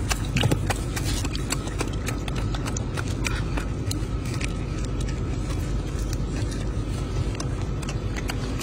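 Golden snub-nosed monkey chewing a piece of red fruit: scattered small sharp clicks of biting and crunching over steady low background noise.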